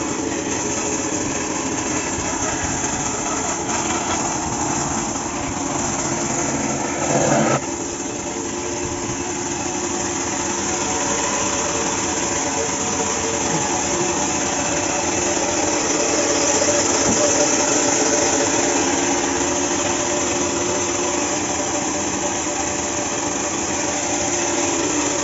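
Bandsaw running steadily while sawing wood, a constant machine hum with a brief louder burst about seven seconds in.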